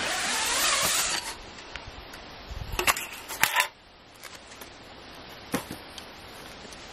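Folded metal frame of a pop-up fire pit being pulled out of its fabric carry bag: a rustling swish lasting about a second, then a few sharp metallic clicks and clinks about three seconds in, and one more click a little later.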